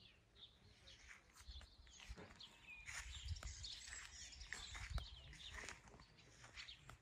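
Faint birdsong, short chirps on and off, with scattered footsteps on grass and a low rumble.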